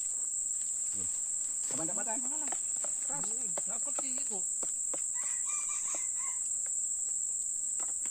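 Steady high-pitched drone of forest insects. Low men's voices talk briefly in the middle.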